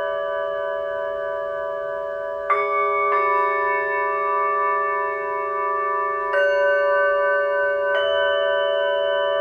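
Several Tibetan singing bowls ringing together in long, overlapping tones, with four fresh strikes adding new bowls or renewing the ringing: two close together a few seconds in, then two more in the second half.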